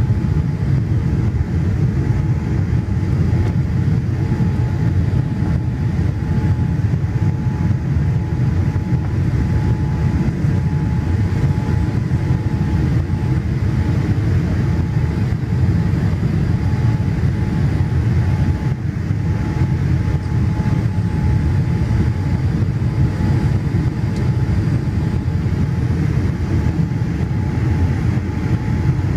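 Boeing 787 Dreamliner cabin noise at a window seat beside the engine, heard during the low descent towards landing. It is a steady, deep roar of engine and airflow with a faint steady hum on top.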